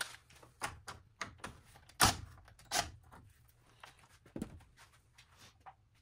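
Scattered light clicks and knocks from tool handling on the washing machine's plastic and metal parts while the pressure switch's screw is taken out. The loudest knock comes about two seconds in.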